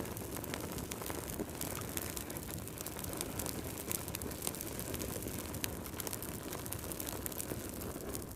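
Fire burning in a fireplace, crackling: many small sharp pops scattered over a steady low rush of flame.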